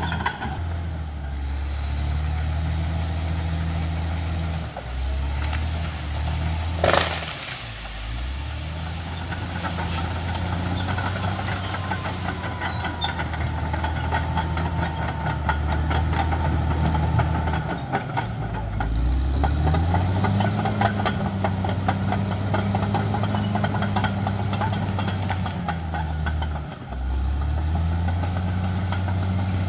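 Caterpillar D6R XL bulldozer's diesel engine running hard under load, its pitch dipping briefly a few times and rising about nineteen seconds in, with scattered clicks and clatter. There is one loud sharp crack about seven seconds in.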